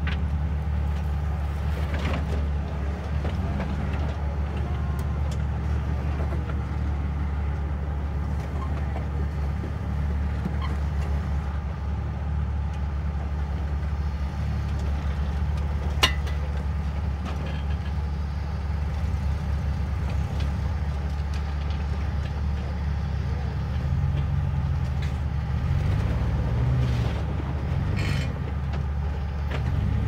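Off-road 4x4's engine running steadily at low revs on a trail run, with a single sharp knock about halfway through.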